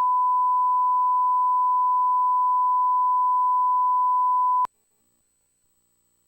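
Electronic test tone: a single steady pure beep at one unchanging pitch, like the reference tone laid at the head of a tape. It holds for about four and a half seconds, cuts off suddenly, and near silence follows.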